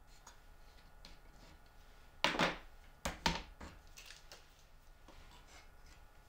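Plastic one-handed quick-release bar clamps being handled on a plywood box: a short scraping rattle, then a quick run of sharp clicks and a few lighter ones.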